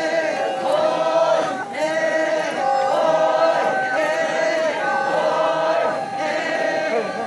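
A group of Naga dancers singing a traditional folk chant together, men's and women's voices in repeated phrases of long held notes.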